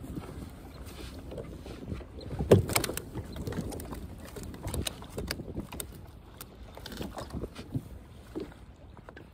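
Scattered knocks and clatter aboard a small fishing boat, with one louder knock about two and a half seconds in.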